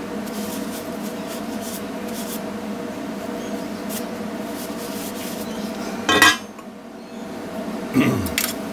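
A cloth rubbing and hands handling a bare aluminium pipe as it is wiped clean, over a steady background hum. A loud metal clatter about six seconds in, as the pipe is set down on the steel welding table.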